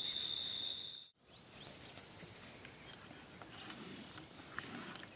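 Crickets trilling in one steady high note, cut off abruptly about a second in. After that there is faint rural outdoor ambience with a few faint short chirps.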